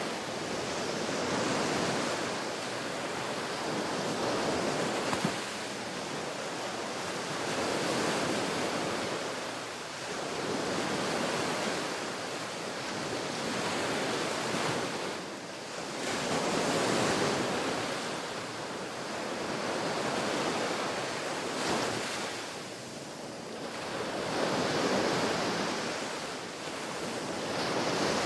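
Ocean waves washing onto a beach, the surf swelling and falling back every three to five seconds in a steady rhythm.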